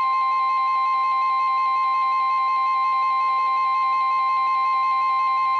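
NOAA Weather Radio's 1050 Hz warning alert tone sounding steadily, the signal that a warning is about to be read, here a severe thunderstorm warning. Under it, a warbling tone a little lower in pitch cuts off near the end, and faint rapid higher beeps pulse throughout.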